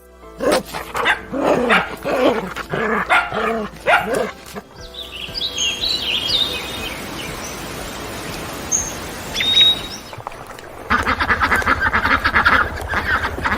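A dog barking about six times, then birds chirping over a steady hiss, then a rapid pulsing animal call near the end.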